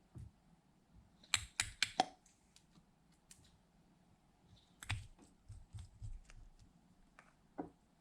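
Slime being worked by hand, making sharp clicks and small pops: four loud clicks in quick succession about a second and a half in, then a looser run of softer clicks from about five seconds in.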